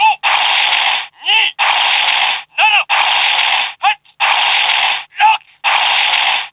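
Zyuoh The Light toy's speaker playing a repeating sound effect: a short animal-like cry that swoops up and down in pitch, then about a second of harsh, static-like hiss. The pair comes round five times, about every 1.3 seconds.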